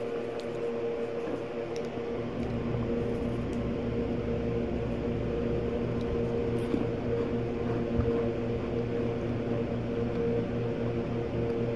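A steady hum made of a few constant tones, like a running fan or appliance, with a few faint clicks and soft rustles.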